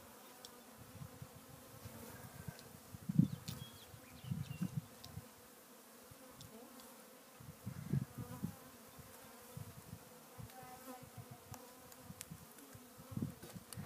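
Many honeybees buzzing in a steady hum around an open hive while a package of bees is being installed. A few soft low thumps break in now and then.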